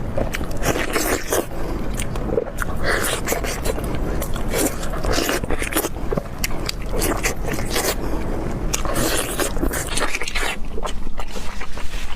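Eating beef knee cartilage and meat off the bone: irregular crunchy bites and scraping, with many sharp clicks.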